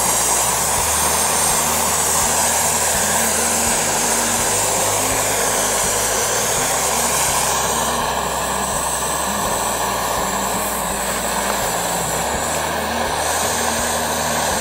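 Snow Peak GigaPower canister stove burning at full flame with a steady roaring hiss. Its sound shifts slightly as a pot is set on the burner about eight seconds in.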